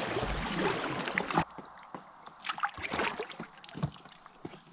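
Paddling a packraft: water rushing and sloshing for about the first second and a half, then quieter, with scattered drips and light knocks of paddle strokes.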